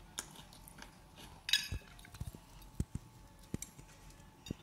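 Metal fork clinking and scraping against a ceramic plate while twirling spaghetti: a string of light taps, with the loudest scrape about a second and a half in.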